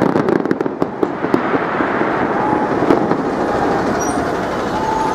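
Last fireworks of a display crackling and popping in quick succession for about a second and a half, with one more pop near three seconds. After that a steady wash of crowd noise with a few short whistles as the show ends.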